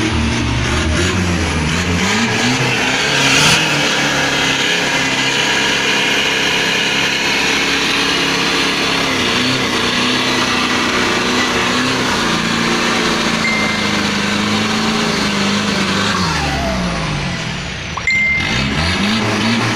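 Isuzu pickup's direct-injection diesel engine running hard under load. Its pitch changes a few times early on, holds steady through the middle, drops about three-quarters of the way through, then climbs again near the end.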